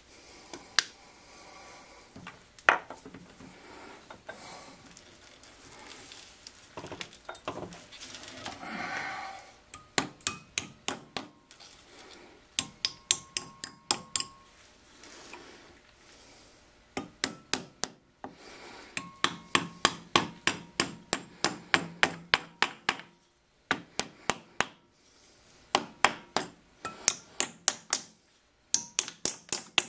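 A small hammer tapping copper jaw covers into shape over the steel jaws of a three-jaw lathe chuck: runs of quick, sharp taps, about five a second, with short pauses between runs. In the first ten seconds there are only a few scattered knocks and some handling noise.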